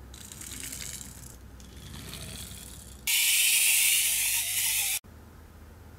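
Pull-back toy cars' spring motors ratcheting as they are wound back, in two stretches of clicking clatter. Then a much louder high, even whir as a released car runs, which stops suddenly about five seconds in.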